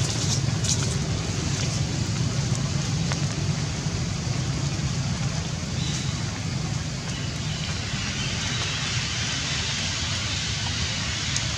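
Steady outdoor background noise: a low rumble under an even hiss, with a few faint clicks in the first second.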